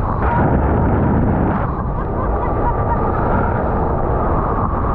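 Suzuki Grand Vitara driving off-road: a steady low rumble of engine and running gear, with a louder rushing surge through the first second and a half.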